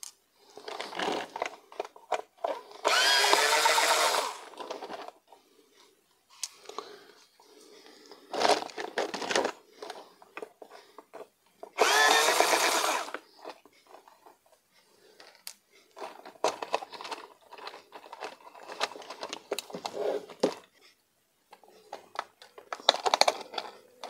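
Cordless electric screwdriver backing screws out of the plastic body shell of a toy RC monster truck: two loud runs of a second or so, whining up and down in pitch, about 3 and 12 seconds in. In between come quieter short runs and the clicks of screws and plastic parts being handled.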